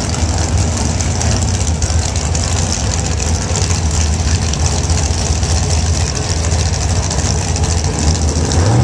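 Drag racing cars' engines idling at the starting line: a loud, steady low rumble with no revving.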